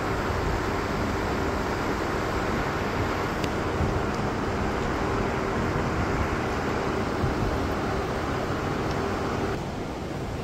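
Steady rushing hum of a large hall with wall-mounted electric fans running and no speech; the noise drops slightly in level near the end.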